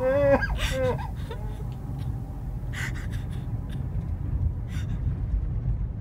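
A child's voice sobbing, breaking off about a second in with a gasping breath, then a few short sniffles and breaths over a low steady rumble.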